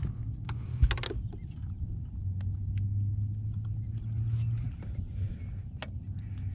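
A freshly landed largemouth bass being handled in a small fishing boat: a loud thud about a second in, then scattered clicks and knocks over a low steady rumble. Heavy mouth breathing is close to the microphone.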